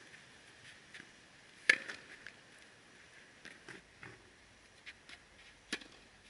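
Tennis balls struck with a racket during ball-machine drills: two sharp hits, the first about 1.7 s in and the loudest, the second near the end, with fainter ticks in between.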